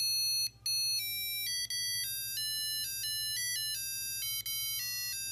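The LED desk lamp's built-in clock playing an electronic start-up melody: a quick run of pure beep tones stepping up and down in pitch, like a ringtone.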